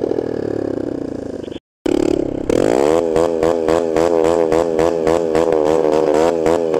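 Sinnis Hoodlum 125cc motorcycle engine under way. After a brief dropout to silence, its note rises sharply about two and a half seconds in and then holds high with a fast waver as the bike accelerates.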